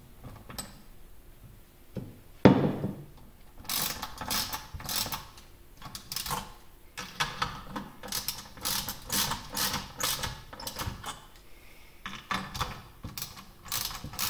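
Socket ratchet clicking in quick runs of strokes as M6 machine screws clamping a chill plate to an inverter are tightened down in turn. There is one louder knock about two and a half seconds in.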